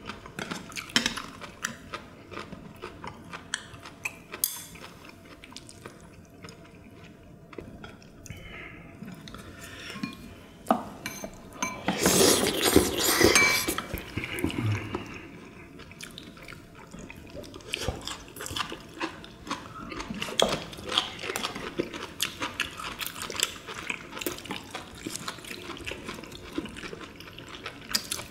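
Eating and tableware sounds at a meal: chopsticks and metal utensils clicking against ceramic bowls and plates, with chewing and slurping. A louder noisy stretch lasting about two seconds comes about twelve seconds in.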